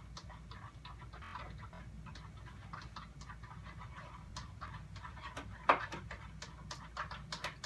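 Sticky glue slime being handled and pulled by hand, making many small irregular clicks, with one louder click about five and a half seconds in.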